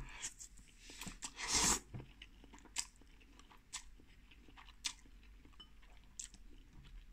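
A person eating a forkful of instant noodles: a slurp a little over a second in, then chewing with scattered wet mouth clicks.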